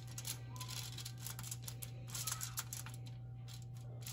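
Aluminium foil crinkling and crackling under fingers as cookie dough is placed and pressed onto a foil-lined baking sheet: a scatter of short, irregular crackles over a steady low hum.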